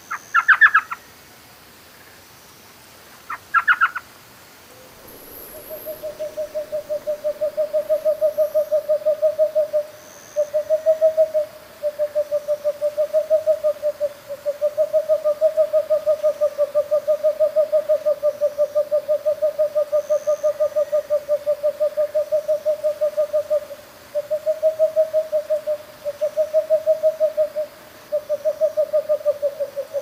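Owl calls: two short, higher calls, then long runs of a rapid, low, pulsing trill, each run lasting several seconds with brief breaks between them.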